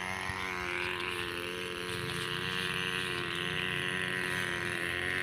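OS 15LA two-stroke glow engine of an Ugly Stik RC model plane running steadily at high revs, a droning whine whose pitch rises slightly about a second in and then holds.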